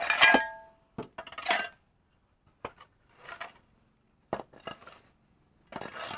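Metal blade of a long-handled garden tool scraping and striking concrete and weedy ground in a series of separate strokes with short pauses between. The first strike rings briefly with a metallic clink.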